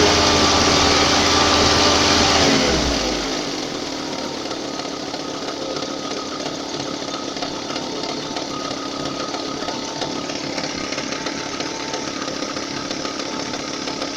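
VAZ-2114 engine coming down from raised revs to idle about two and a half seconds in, then idling steadily with a fast mechanical knock. The owner, having replaced the timing belt, rollers, water pump and alternator, suspects camshaft end play.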